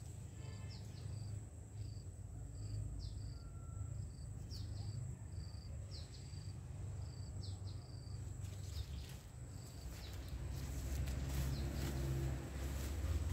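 Outdoor rural ambience: a steady high insect drone and a short high chirp repeated every half second or so, over a low rumble. In the last few seconds, rustling footsteps push through leafy ground cover.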